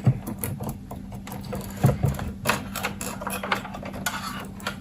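Irregular small clicks, taps and rattles of stiff electrical wires and a hand tool being handled while the wires are fitted to a grounding rail, over a steady low hum.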